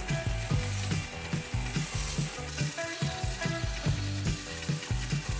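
Cordless drill with a sanding-disc attachment scuffing old paint off a wooden chair frame, a steady abrasive hiss, with background music with a steady beat underneath.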